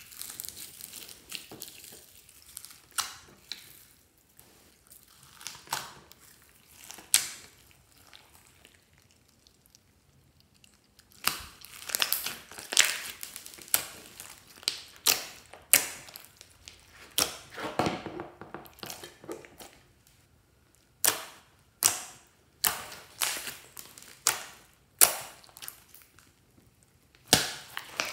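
Hands squishing and kneading glossy slime loaded with sequins, foam beads and clay cubes in a glass dish: irregular crackling and popping in clusters, with a few quieter pauses.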